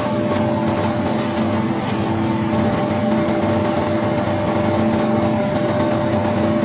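Plastic recycling machine running, a continuous mechanical drone with a steady hum, as waste polythene bags are fed into it.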